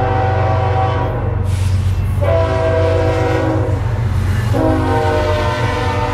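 BNSF diesel locomotive's multi-note air horn sounding for a grade crossing: a blast ending about a second in, a second from about two to nearly four seconds, and a third starting about four and a half seconds in. Under it runs the steady deep rumble of the lead locomotives passing close by.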